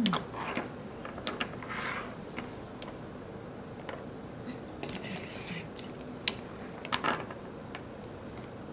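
Scattered small plastic clicks and taps, with two brief soft scrapes, from gel polish bottles, brush caps and a nail-tip swatch stick being handled on a tabletop.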